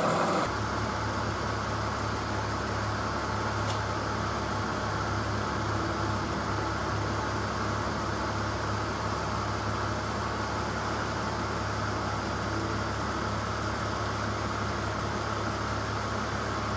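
Steady low hum of a machine running, unchanging throughout, with a faint click about four seconds in.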